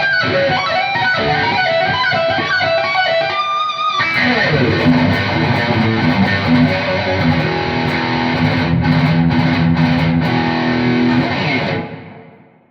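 ESP E-II Horizon electric guitar played through an amp and pedal board: a run of single notes, then at about four seconds in a heavier, fuller chord passage that rings on and fades out near the end.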